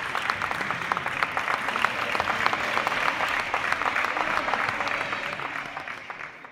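Spectators applauding, a dense patter of hand claps that dies away near the end.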